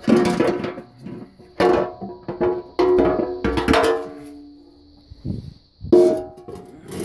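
Sheet-steel oil pans from an Oldsmobile 350 gasoline engine and a 350 diesel clanging as they are handled and set down on a concrete floor: about five sharp metallic strikes, each ringing on for a moment before dying away.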